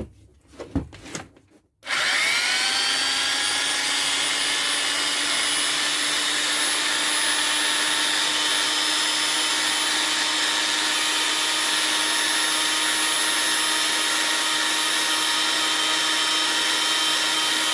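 Parkside PBSD 600 A1 budget belt sander switched on about two seconds in, its motor whine rising as it spins up. It then runs steadily with no workpiece while the belt tracking is checked, and is switched off just before the end.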